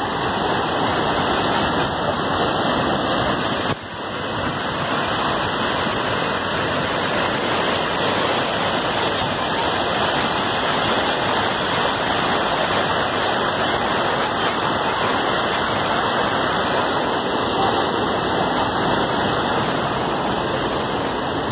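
Water rushing steadily over a river weir and churning white through the stone channel below it.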